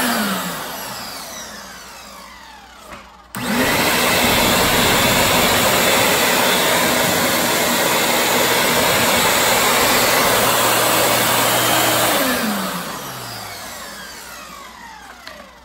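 Ridgid WD16650 wet/dry vac motor winding down after being switched off, then switched back on about three and a half seconds in, running steadily, and switched off again about twelve seconds in, spinning down. It stays on with its new rocker switch fitted instead of tripping the breaker.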